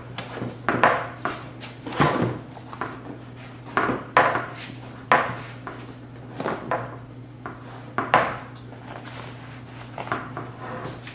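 Irregular knocks, clicks and rustles of hands working a car seat's cover loose from its frame and handling its plastic clips and trim, about one sharp sound a second, over a steady low hum.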